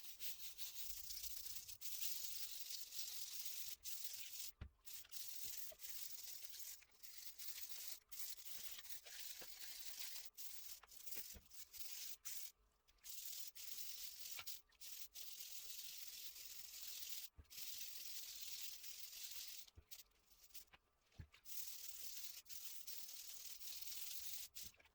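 Abrasive scrubbing on the rusty steel head of an old blacksmith's hammer to clean off rust, a high hiss broken by short pauses every few seconds.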